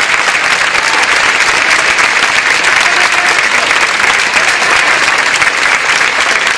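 Stadium crowd applauding: dense, steady clapping from many hands.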